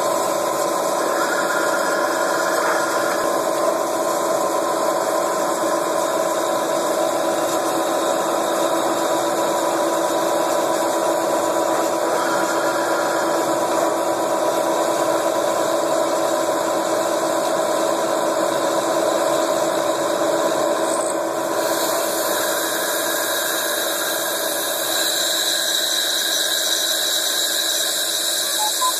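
CNC milling spindle running steadily with a small cutter machining the end of a metal tube held in a chuck on a rotary fourth-axis table: a steady machine whine made of several tones, with a faint squeal from the cut coming and going. The sound shifts a little past two-thirds of the way through.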